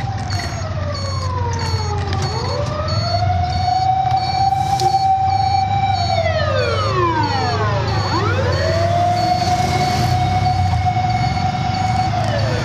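A siren wailing in long slow sweeps, falling, rising and holding at the top before falling again, over a steady low engine hum, with a light ticking about twice a second.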